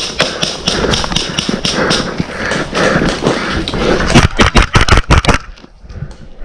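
Quick rhythmic footfalls, then from about four seconds in a rapid string of sharp cracks, about six a second, from airsoft guns firing, pausing briefly before starting again near the end.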